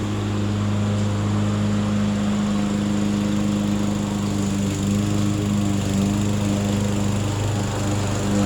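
Murray 22-inch self-propelled lawn mower's small engine running at a steady speed, a continuous even drone.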